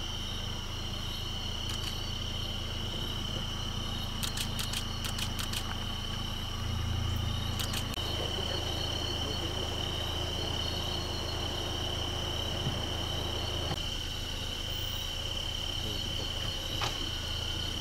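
Crickets trilling steadily in a high, unbroken band over a low steady hum, with a quick run of clicks about four seconds in.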